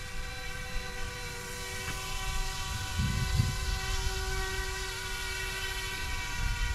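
Electric RC helicopter (YU XIANG F06 EC135) in flight, its motors and rotors giving a steady whine of several pitches held at once, with wind rumbling on the microphone.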